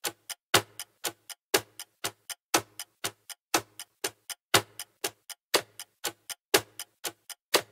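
Ticking clock sound effect: sharp, even ticks about four times a second, with every fourth tick louder.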